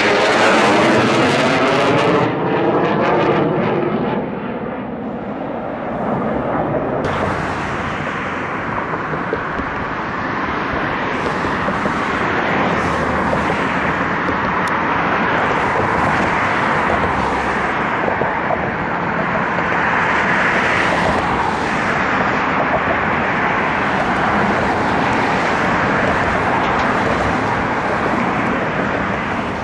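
Blue Angels F/A-18 Hornet jets flying past, loud jet engine noise with a sweeping, phasing pattern as a jet passes over in the first few seconds, then fading. About seven seconds in the sound changes abruptly to a steady, loud jet noise that lasts to the end.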